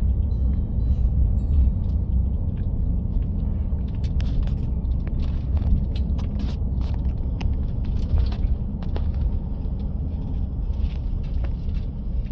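Steady low rumble with a few faint clicks and knocks; the siren is no longer sounding.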